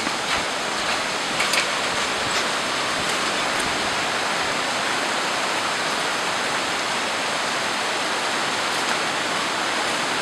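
Steady rush of a forest stream running over rocks beneath a hanging footbridge, with a few light footsteps on the bridge deck in the first couple of seconds.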